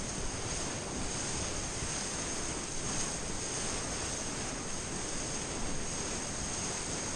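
Whitewater rapids rushing around a kayak, a steady noise of churning water close up, with a faint steady high whine over it.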